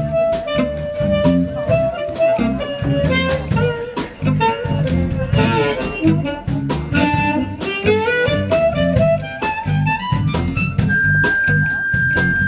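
Amplified harmonica, cupped against a handheld microphone, playing a blues solo with bending notes over a drum-led band, then holding one long high note near the end.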